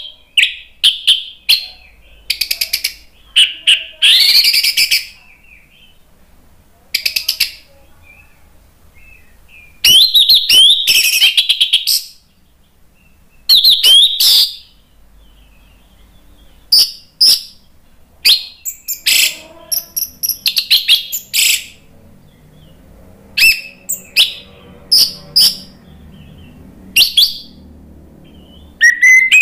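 Orange-headed thrush singing in full voice: loud, high, varied phrases of a second or two each, repeated with short pauses between them.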